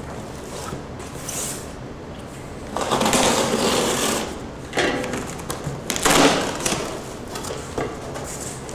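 Snap-off utility knife slicing through packing tape along a cardboard box's seams, then cardboard scraping and rubbing as the box is opened. Several louder rasps come about three seconds in and again around six seconds in.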